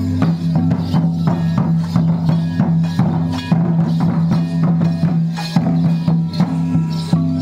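Traditional Santali drums played live for a Karam dance, beating a quick, steady rhythm over a steady low drone.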